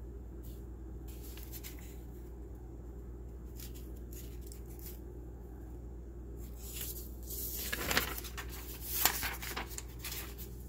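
Paper rustling as a lined notebook page is handled and turned, with two sharper crackles in the last few seconds, over a steady low hum.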